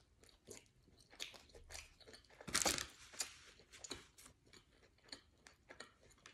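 A person chewing a mouthful of sub sandwich, a run of small irregular clicky mouth sounds, with one louder burst about two and a half seconds in.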